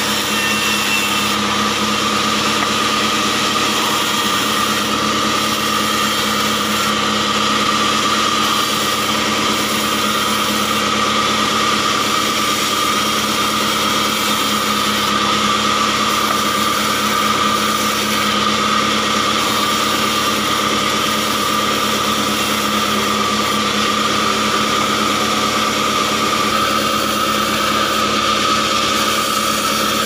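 Bandsaw mill running steadily with a constant hum and a high whine, as acacia logs are fed through the blade and slabbed.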